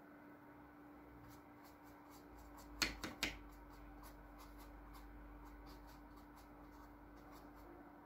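Bristle brush working oil paint onto canvas in faint, short scratchy strokes, with three sharp taps close together about three seconds in.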